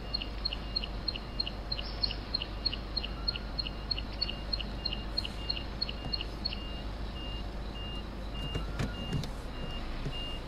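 A car's reverse-gear warning beeper sounding high-pitched, fast short beeps, about three a second, over the low hum of the engine. About six and a half seconds in it changes to slower, longer beeps, about two a second.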